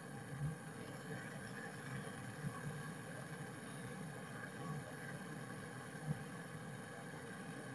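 A steady low mechanical hum, with a few soft knocks.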